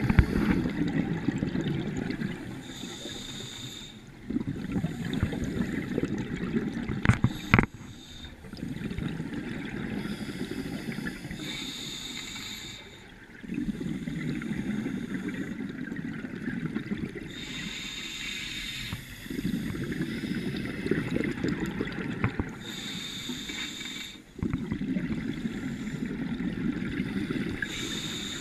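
Scuba diver breathing through a regulator underwater: a short hiss on each inhale, then several seconds of rumbling, gurgling exhaust bubbles, in a cycle of about five seconds. A couple of sharp clicks about seven seconds in.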